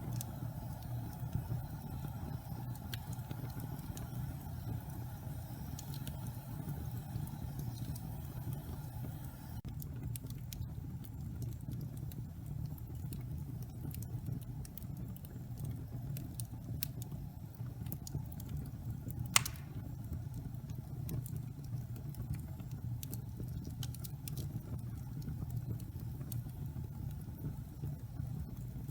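Wood fire burning in a fireplace: a steady low rumble of flames with scattered small crackles and one sharp, loud pop about two-thirds of the way through. A higher background hiss drops away about ten seconds in.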